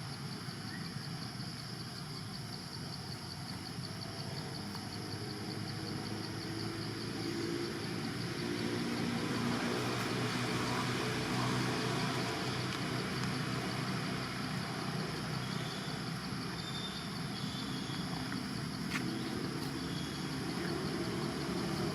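Steady outdoor background of insects chirring high up. A motor vehicle passes, getting louder through the middle.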